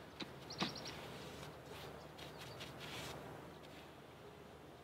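Faint soft swishing of a paintbrush laying varnish onto a wooden cockpit coaming, with a few short quick bird chirps in the background, one about half a second in.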